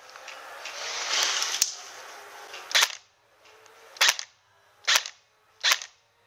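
Airsoft replica firing four single shots, sharp cracks roughly a second apart in the second half, after a stretch of noise in the first two seconds.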